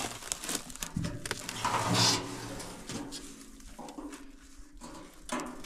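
An old galvanized steel water container being handled in dry brush: metal scraping and brush rustling, with a low groan about a second in.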